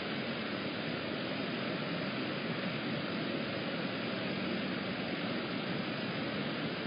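Steady outdoor background noise with a faint low hum and no distinct events, heard through a security camera's microphone.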